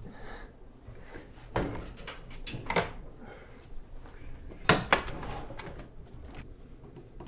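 A few scattered knocks and clunks of things being handled on and around a gas stove top, the loudest pair nearly five seconds in.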